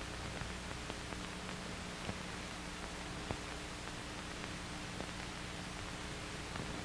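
Hiss and low hum of an old optical film soundtrack, with scattered crackles and pops; two sharper pops come about two and three seconds in.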